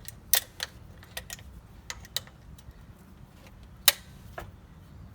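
Irregular sharp metallic clicks and clinks of hand tools being handled, about a dozen, the loudest about four seconds in.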